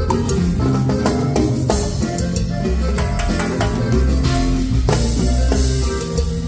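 Live band playing an instrumental passage of a Latin dance tune during a sound check, with a drum kit and deep bass notes prominent.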